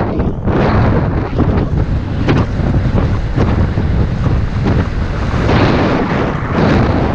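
Wind rushing and buffeting over the microphone of a camera on a moving road bike: a loud steady rush with irregular short gusts.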